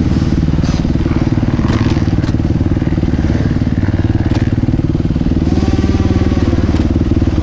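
250cc four-stroke dirt bike engine idling steadily close by, with a few light clicks over it.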